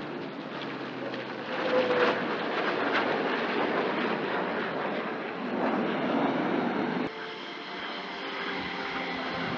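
Engine noise of an F-22 Raptor jet fighter and a P-51 Mustang flying past together in formation: a steady rushing noise that swells about a second and a half in and drops suddenly about seven seconds in.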